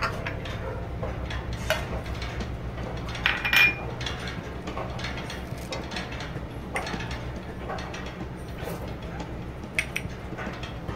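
Chopped green chillies, peanuts and spices being tipped into a stainless-steel mixer-grinder jar, with scattered light clinks and taps against the metal. One louder clink with a short ring comes about three and a half seconds in.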